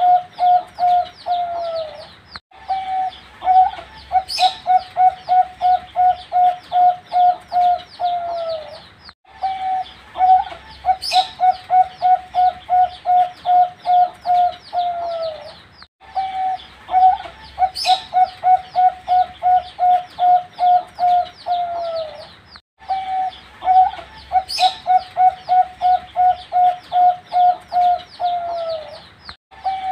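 Young zebra dove (perkutut) singing: a quick run of short, even coos ending in a longer falling note. The phrase repeats about four times.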